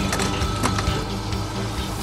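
Fishing reel clicking irregularly, most of it in the first second as line is let out for trolling, over the steady low hum of the boat's engine.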